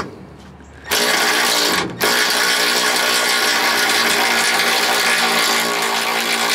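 A power tool drives the forcing screw of a torsion bar unloading tool, loading up the torsion bar so the adjuster bolt hole clears. It runs about a second, pauses briefly, then runs steadily with a buzzing whine for the rest of the time.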